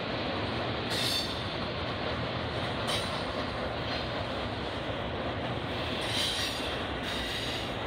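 Double-stack intermodal container train rolling past, a steady rumble of wheels on rail. Short high wheel squeals come a few times, about 1, 3 and 6 seconds in.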